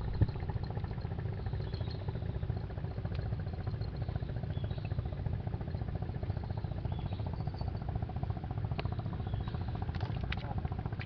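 Small boat engine running steadily at low revs, a fast even putter, with a few light clicks over it.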